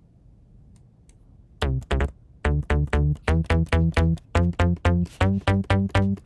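Synthesizer bass line played back: short staccato notes, about four a second, starting about a second and a half in, with a strong low end and a bright, buzzy top. The bass is EQ'd with a high shelf so that it comes through on a phone speaker as a ringtone.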